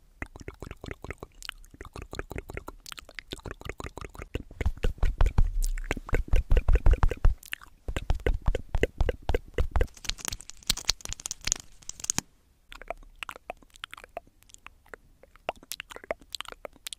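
Coloured pencil scribbling fast back and forth on notebook paper while colouring in. It makes a dense run of short scratchy strokes, loudest and heaviest through the middle and much lighter in the last few seconds.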